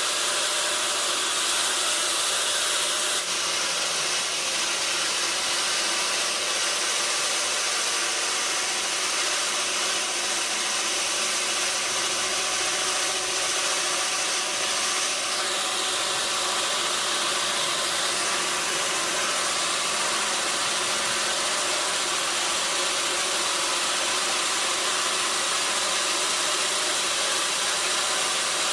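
Sawmill machinery running steadily: an even, loud hissing noise with a faint mechanical drone beneath, changing slightly in tone a few seconds in and again past the middle.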